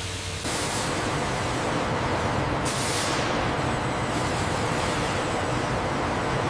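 Wood-processing machinery running with a steady, loud hissing rush that steps up about half a second in, with brief brighter hisses near the start and about a third of the way in.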